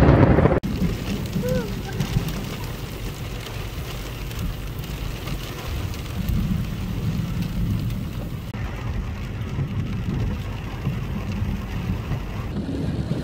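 Rainstorm ambience outdoors: a louder rush of noise cuts off abruptly just after the start and gives way to a steady low rumble.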